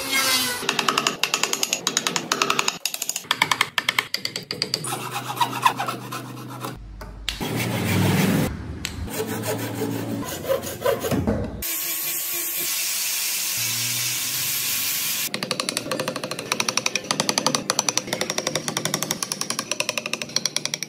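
Woodworking tools on Fokienia wood: quick repeated rasping and scraping strokes in several short clips cut together, with a stretch of steady hiss a little past the middle.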